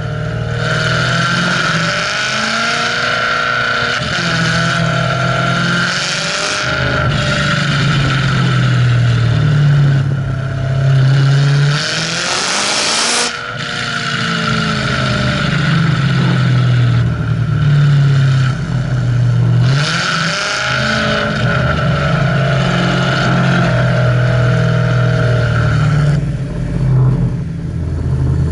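BMW E92 M3's V8 running through a Fi Exhaust valved system with catless pipes and an X-pipe while the car is driven, its engine note rising and falling with engine speed. A loud rush of noise comes about halfway through, and a steady high whine sits over the engine for the first few seconds and again later on.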